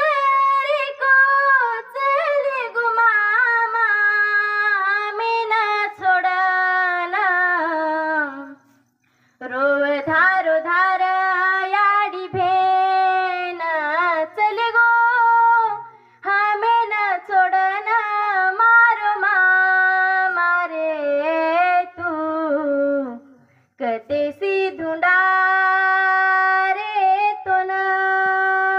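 A woman singing a Banjara folk song solo, without instruments, in long melodic phrases with held notes and brief pauses between them.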